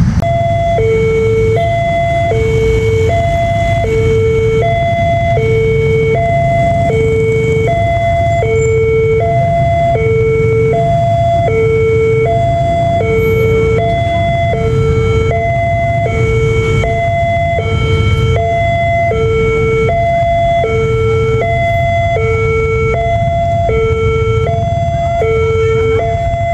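Railway level-crossing warning alarm sounding its electronic two-tone hi-lo signal, alternating evenly between a higher and a lower note about every two-thirds of a second, warning that a train is coming and the barrier is closed. A steady low rumble runs underneath.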